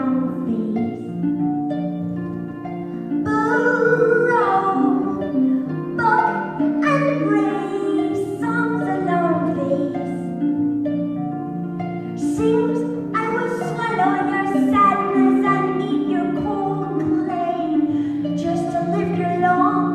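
Solo concert harp playing an instrumental passage: flowing runs of plucked notes over ringing bass notes, with no singing.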